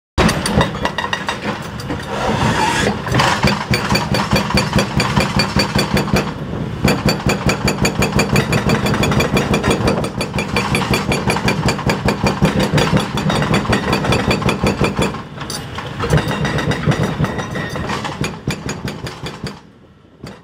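Epiroc hydraulic breakers on Doosan excavators hammering concrete bridge deck in rapid, continuous blows, several a second, over the excavators' diesel engines. Twice there is a short break in the hammering.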